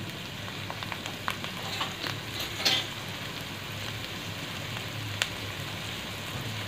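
Onions and green peas sizzling steadily in hot oil in a metal kadai. A few ticks and knocks of a wooden spatula against the pan, the loudest about two and a half seconds in.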